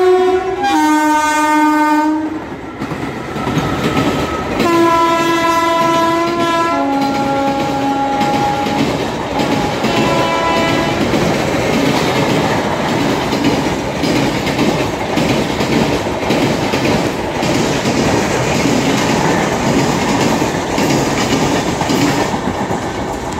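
Train horn blaring in blasts that step down from a higher to a lower note: near the start, again about five seconds in, and faintly around ten seconds. Then an express of LHB coaches hauled by a WAP-4 electric locomotive rolls past, with a steady rumble and the clickety-clack of wheels over rail joints.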